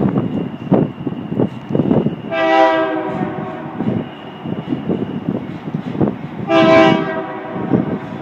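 Freight locomotive air horn sounding two short blasts, about four seconds apart, each a chord of several tones, over the rumble and irregular knocking of a passing freight train's wheels on the track.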